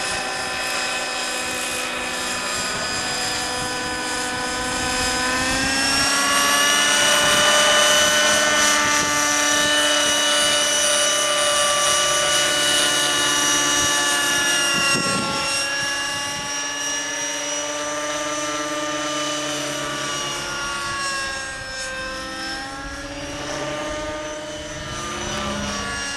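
T-Rex 600 Nitro Sport RC helicopter in flight, its O.S. .50 Hyper nitro engine with MP5 muffler running at high revs with the rotor noise. The engine note wavers up and down in pitch as the helicopter manoeuvres. It is loudest from about a quarter to halfway in, then a little quieter toward the end.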